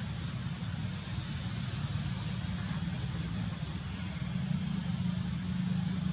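Steady low rumble with a faint hiss above it, unchanging throughout.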